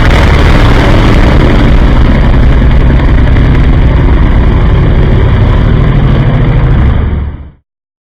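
Loud race-car engine running steadily at high revs, fading out quickly about seven seconds in.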